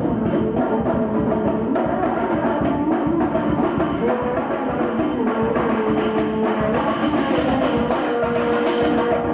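Hadroh music: rebana frame drums and jingling tambourine beat a steady, dense rhythm beneath a held melody that moves in steps.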